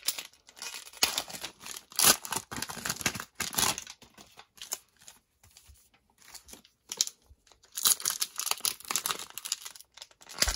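Plastic cello-pack wrappers of trading cards crinkling and tearing as they are handled and ripped open, with a quieter spell in the middle.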